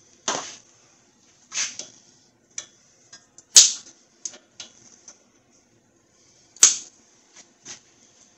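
Cutters snipping the ends off a new steel cotter pin fitted through the axle nut: two sharp metallic snips about three seconds apart, with lighter clicks of metal tools in between.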